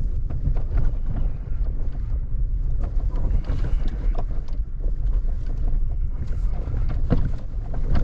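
Vehicle driving a forest road: a steady low rumble of engine and tyres, with frequent small knocks and rattles, and wind buffeting the microphone.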